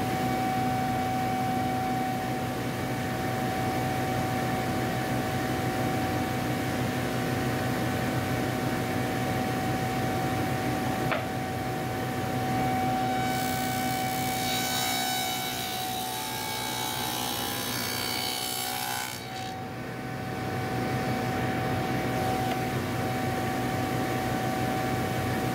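INMES SI503 table saw running with a DeWalt dado blade, cutting dadoes across wood panels as they are pushed over the blade. It gives a steady motor whine throughout, with a harsher, hissier cutting sound for several seconds a little past halfway.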